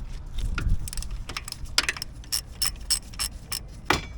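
Hand ratcheting wrench clicking in short strokes on a 12 mm bolt, a run of sharp metallic ticks with some louder clinks of metal.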